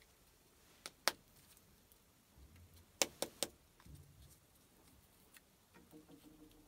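Faint handling of small paper sachets of antacid powder over glass measuring cylinders: a few sharp clicks and taps, two about a second in and three in quick succession about three seconds in, with soft low thumps between them.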